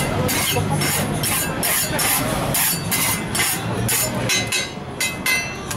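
Rhythmic metallic clatter, about three strikes a second, with a brief metal ring near the end, over steady street noise.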